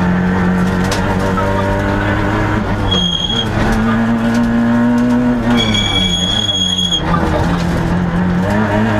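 Peugeot 106 XSi rally car's four-cylinder engine revving hard under full throttle, heard from inside the stripped cabin, its pitch falling on lifts or gear changes about three seconds in and again near seven seconds. Brief high squeals come twice, about three seconds in and just past the middle.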